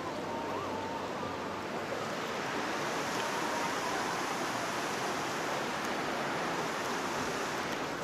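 Steady rush of river water flowing over rocks in the gorge below, a little louder about three seconds in.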